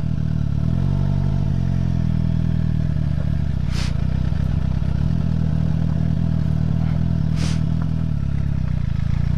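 Sport motorcycle engine running at low revs while the bike rolls slowly on gravel, the revs shifting slightly in the first couple of seconds. Two short hissing sounds come about four and seven seconds in.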